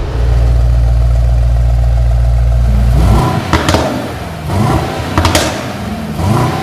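Mercedes-AMG GLE 63 S's 4-litre twin-turbo V8 running at a raised idle just after start-up in Sport Plus, a steady deep drone that drops away about three seconds in. A few sharp clicks follow.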